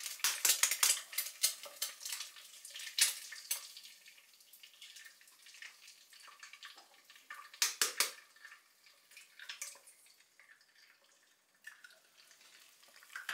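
A metal fork tapping and cracking eggshells: a quick flurry of sharp taps in the first couple of seconds, another tap about three seconds in and a cluster near eight seconds. Under it, eggs frying in sunflower oil give a faint sizzle.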